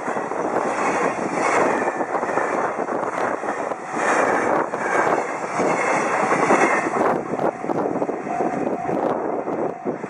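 Container freight train passing at speed: a steady rumble and rattle of wagon wheels on the rails, with many short clacks from the wheels running over rail joints.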